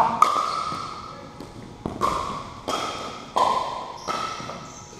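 Pickleball rally: about six sharp plastic knocks of paddles striking the hollow ball and the ball bouncing on the wooden gym floor, each ringing and echoing briefly in the large hall. The hits thin out and fade toward the end as the point ends.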